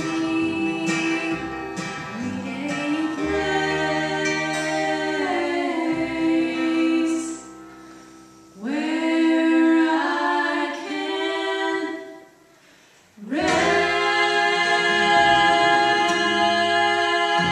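Unaccompanied bluegrass gospel harmony singing, several voices led by young women, holding long notes. The singing stops briefly twice, about seven and a half and twelve seconds in, before the voices come back together.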